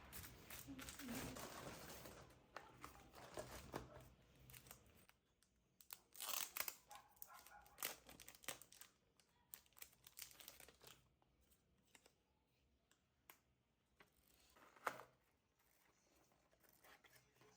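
Faint crinkling and rustling as something is handled, dense for about the first five seconds, then thinning to scattered soft clicks and taps.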